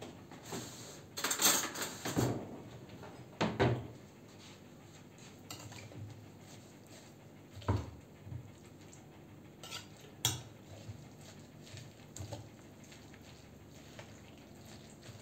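A fork clinking and scraping against a glass bowl while salad greens in yogurt are tossed. A busier stretch of scraping comes about one to two seconds in, then scattered separate knocks and clinks.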